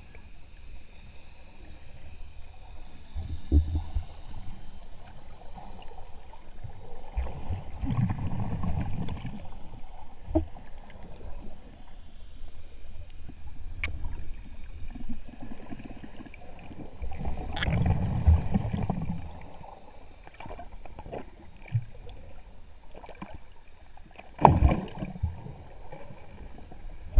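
Muffled underwater sound from a camera held below the surface: a low wash of water with scattered faint clicks, and two longer swells of rushing noise about eight and eighteen seconds in.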